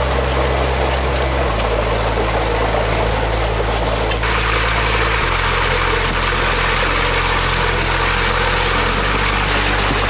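Water rushing and pouring through a small concrete channel, growing louder and brighter about four seconds in, over a steady low hum that shifts pitch in steps every few seconds.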